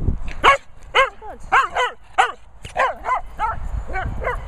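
Cocker spaniel barking in a rapid series of about a dozen short barks, roughly three a second, each rising and falling in pitch.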